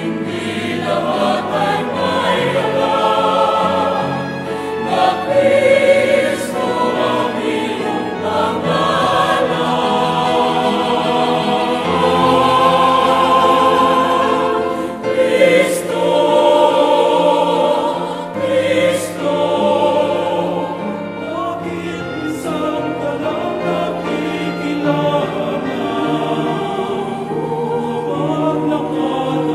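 Choir singing a religious song in several-part harmony, with long held chords.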